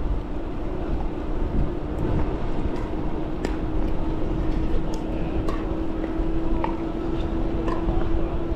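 Electric bike motor whining steadily in pedal-assist level 3 as the bike picks up speed, the whine growing stronger toward the end, over a low rumble of wind and tyre noise with a few faint clicks.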